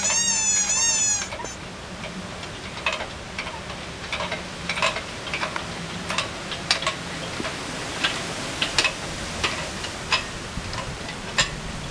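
Squeaker of a Mighty GripZ rubber dog-toy ball squealing in quick wavering pulses for about the first second, as the chain stretches the ball under the car's weight, then stopping. After it comes a run of irregular sharp clicks, a few a second, from the loaded chain and jack as the lift is worked.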